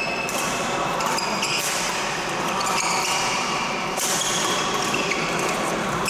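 Badminton rally: sneakers squeaking on the court floor and racket strikes on the shuttlecock, about three sharp hits a second or more apart, over a steady background din in the hall.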